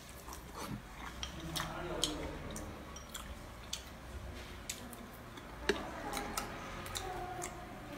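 A person chewing and eating with wet mouth clicks and smacks, dotted with small sharp clicks.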